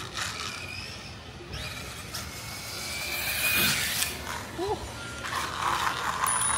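Losi Promoto-MX quarter-scale brushless RC dirt bike riding on asphalt: its electric motor and drivetrain whine over tyre noise, with a rising whine about three seconds in as it speeds up.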